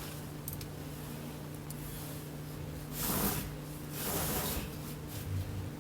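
Two short hissing breaths, like effortful exhales, about a second apart over a steady low hum.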